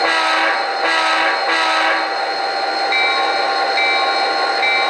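Sound decoder in an Athearn Genesis GP39-2 model diesel locomotive playing three short horn blasts, the signal for backing up. From about three seconds in the bell rings about once a second, over the steady sound of the diesel engine.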